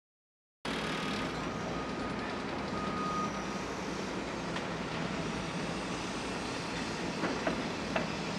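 Construction-site ambience starting after a brief silence: a steady low rumble of heavy machinery and trucks, with a thin high tone held for the first few seconds and a few sharp knocks near the end.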